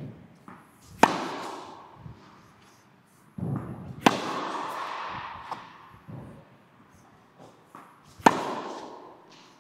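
Tennis ball struck with a racket on one-handed backhands, three sharp hits about three to four seconds apart, each ringing on in a large indoor tennis hall, with softer thuds in between.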